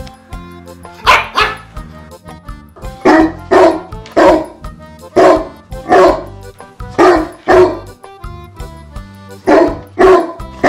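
Dog barking again and again, often two or three barks in quick succession, over background music with sustained low notes.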